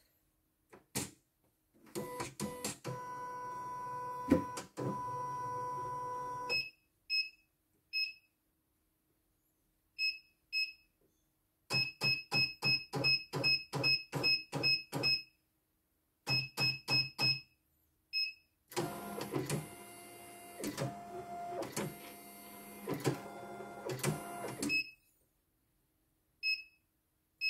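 Control-panel button beeps from a CNY computerised embroidery machine, some single and then a quick run of about a dozen. The machine's motors whir twice, once for about four seconds early on and again for about six seconds near the end.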